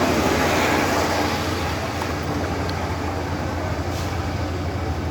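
Motorcycle V-twin engine running steadily with a low, even rumble.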